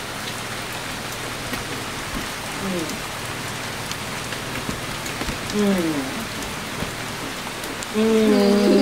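Steady hiss of rain falling throughout, with a couple of short falling 'mm' hums from someone tasting, and a louder appreciative 'emm' near the end.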